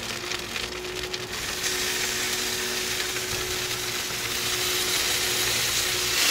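Smoked chicken sizzling on the open kamado's grate, a steady hiss that grows louder about a second and a half in, with a low steady hum underneath.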